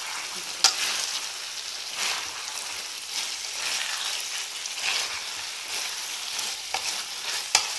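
Chicken pieces and sauce sizzling in a metal pan while being stirred slowly with a spoon, scraping through the food, with a couple of sharp knocks of the spoon against the pan.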